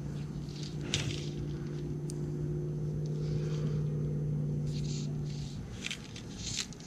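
A steady low hum that fades out about five and a half seconds in, with a few faint ticks and rustles.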